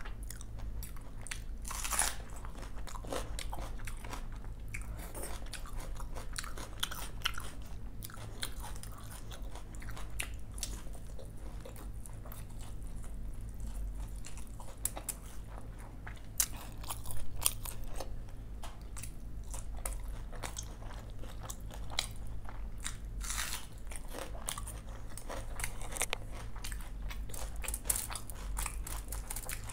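Close-miked eating by hand: crisp crunching bites of fried snacks such as pakoras, with chewing and small wet mouth sounds, over a steady low hum.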